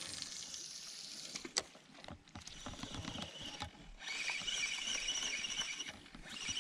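Spinning reel being cranked to retrieve a crankbait, a steady whirr from about four seconds in, with a sharp tick earlier on.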